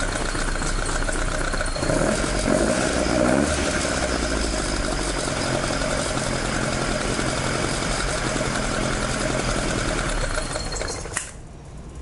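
Toyota 4A-G four-cylinder engine with four individual intakes running at idle, with a brief rise in revs about two seconds in. It is switched off about eleven seconds in and the sound cuts out suddenly.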